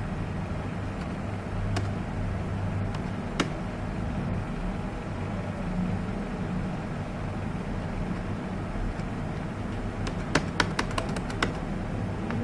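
Steady low background hum, with a few sharp computer mouse clicks: one about two seconds in, another a little later, and a quick run of about six near the end.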